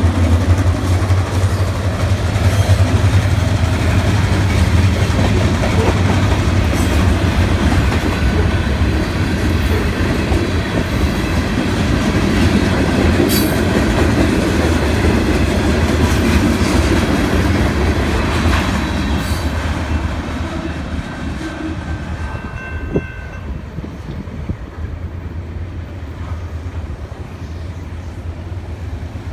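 A freight train passing close by. Its diesel locomotives' engines hum low at first, then tank cars roll past with wheels clicking and clattering over the rails. The sound fades after about twenty seconds as the train moves off.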